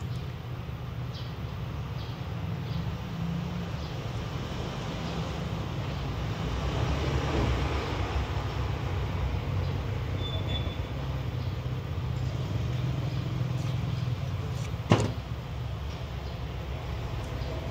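Small handling sounds of objects being moved on a workbench over a steady low hum, with one sharp click about fifteen seconds in.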